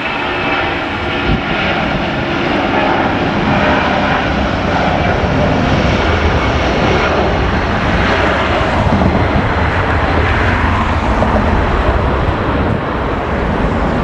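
Boeing 757 twin-jet airliner at takeoff thrust, accelerating down the runway, rotating and climbing out: a loud, steady jet noise whose deep rumble builds through the middle.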